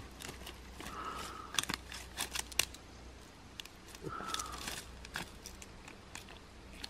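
Scattered dry crackles and clicks, densest about two seconds in, with a short animal call that repeats about every three seconds.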